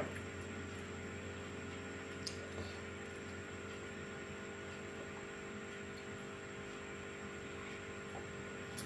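Steady low electrical hum with a thin high whine, and a couple of faint clicks near the start and about two seconds in.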